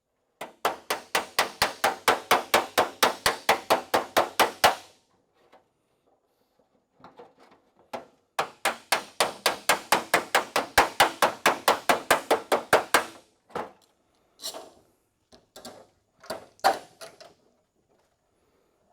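Hammer rapidly striking sheet steel, about six blows a second with a metallic ring, in two long runs, then a few scattered blows near the end: working a welded-in patch panel on a trunk lid.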